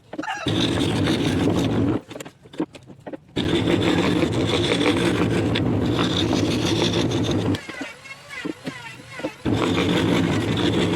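Electric scroll saw running and cutting wood, with a steady motor hum and blade rasp that drops out twice for a second or two.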